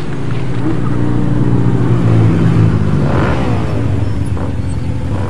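A motor vehicle's engine running close by, growing louder and then dropping in pitch as it passes, loudest about two to three seconds in.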